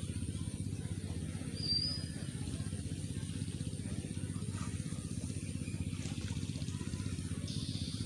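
A motor running steadily with a low hum, and one short high chirp about two seconds in.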